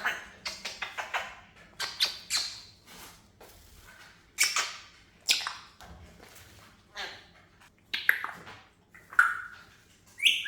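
Pet parrot making vocal sound effects: a string of short, hissy, raspy bursts, some coming in quick runs, with a brief whistle near the end.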